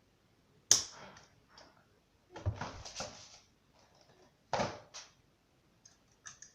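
Plastic parts of a Znatok snap-together electronic kit clicking and clattering as they are handled and pressed onto the board. There is a sharp click about a second in, a longer clatter around the middle, and two more clicks near the end.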